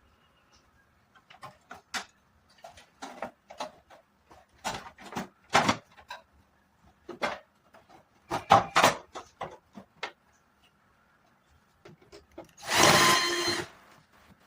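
Irregular clicks, taps and knocks of tools and metal parts being handled, then a loud, noisy buzzing burst of about a second near the end.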